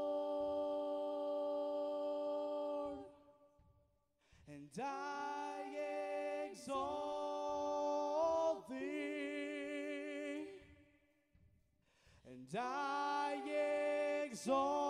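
Solo voice singing slow worship phrases with little or no accompaniment: a long held note that fades out about three seconds in, then sung phrases with sliding pitch, broken by two short pauses.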